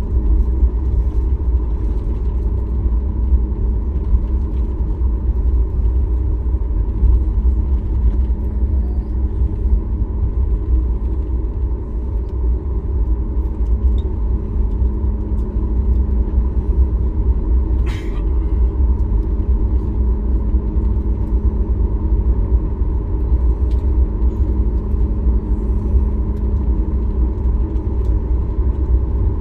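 Steady low drone of a Boeing 737 MAX 8's cabin, engine and airflow noise with a faint steady hum. A single brief click about two-thirds of the way through.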